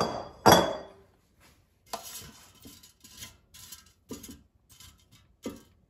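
Fingerling potatoes landing in a metal air fryer basket with two loud clattering knocks that ring briefly in the first second. Then a metal fork scrapes and taps among the potatoes in the basket, making scattered light knocks and clinks.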